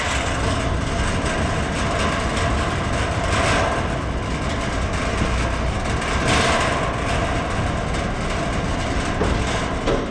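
Steady low mechanical rumble with a hiss over it, swelling louder twice, about three and six seconds in.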